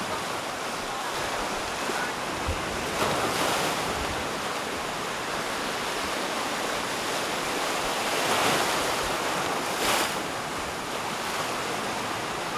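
Sea waves washing onto a beach: a steady rush of surf that swells up a few times as waves break.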